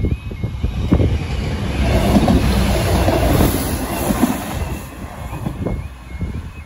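A Class 156 diesel multiple unit passes over a level crossing: a loud rumble of engine and wheels that builds about a second in, peaks through the middle with a few sharp wheel knocks, then fades. The crossing's repeating two-tone warning alarm sounds at the start and comes back near the end once the train has gone by.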